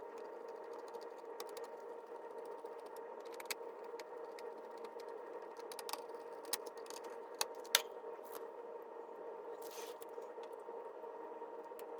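Scattered light clicks and taps from handling small computer parts over a steady hum, the strongest clicks coming two-thirds of the way in.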